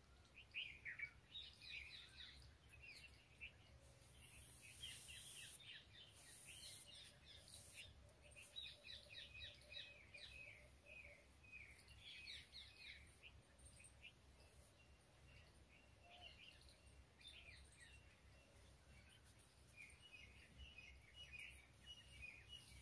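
Faint small birds chirping and trilling in short repeated phrases, over a low steady background rumble.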